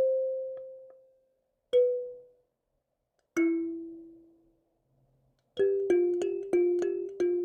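Single notes on a plucked or struck melodic instrument, each starting sharply and ringing out to nothing within about a second, slowly spaced; about five and a half seconds in, quicker notes begin, about three a second, moving between two or three pitches.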